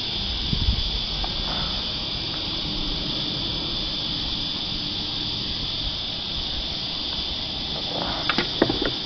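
Steady high-pitched drone of a cicada chorus, with a low thump a little under a second in and a few sharp clicks and knocks near the end.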